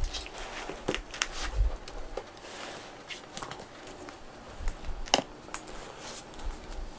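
Soft rustling and scattered small clicks close to the microphone as two cats rub together and are petted, with a low thump near the start and a sharper click about five seconds in.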